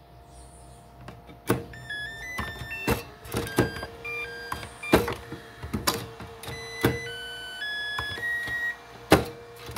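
Makita DC18RC battery charger playing its electronic jingle of short stepped beeps as the 18 V lithium-ion battery is pulled out and pushed back into the dock, with the hard plastic clicks and knocks of the battery sliding on the charger rails several times.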